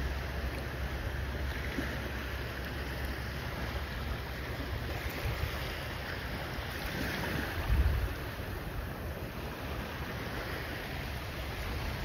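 Ocean surf washing onto the beach in slow swells, with wind rumbling on the microphone and a brief low thump about two-thirds of the way in.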